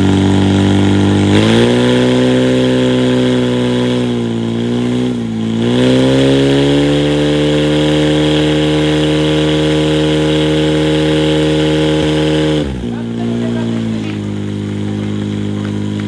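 Portable fire pump's engine running hard under load, its pitch climbing, dipping briefly about five seconds in, then holding high while it drives water out through the attack hoses. About twelve and a half seconds in, the revs drop abruptly to a lower idle as the attack ends.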